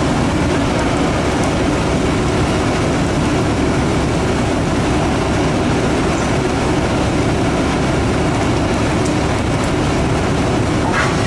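Steady, loud rumble of a fishing trawler's engine and deck machinery.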